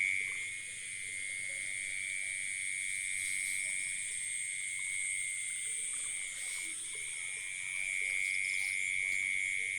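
Night chorus of frogs and insects after rain: a steady, unbroken shrill drone, with a faster regular chirping above it.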